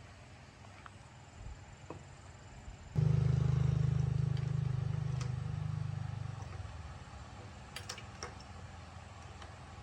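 A motor starts abruptly about three seconds in with a low, steady hum, then fades away over the next few seconds. A few faint clicks and taps follow.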